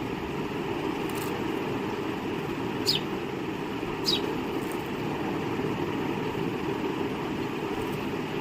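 A few short, downward-sliding sparrow chirps, two of them clear about three and four seconds in, over a steady low background rumble.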